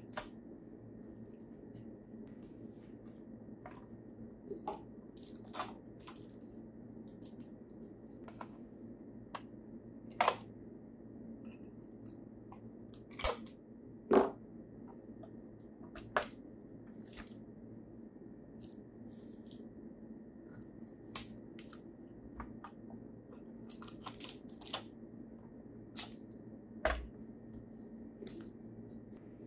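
Scattered light clicks, taps and knocks from a 1:18 scale diecast Nissan GT-R model being handled, turned over and set down on a table, with a few louder knocks in the middle, over a steady low hum.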